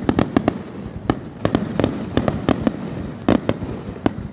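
Aerial fireworks shells bursting in a dense finale barrage: sharp bangs come several times a second at irregular spacing over a continuous rumble, with one especially loud bang about three seconds in.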